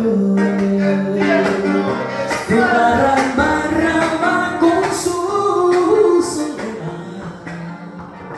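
Live male voice singing with acoustic guitar: a long note held for about two seconds at the start, then a wavering, ornamented melodic line that grows quieter near the end.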